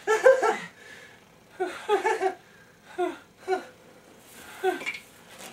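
A man laughing in several short bursts of falling 'ha' syllables, about a second apart, the last ones single and drawn out.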